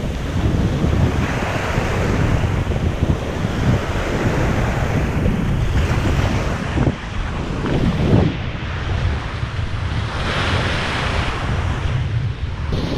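Surf washing up the beach, with wind buffeting the microphone in a steady low rumble; the wash of the waves swells up a couple of times.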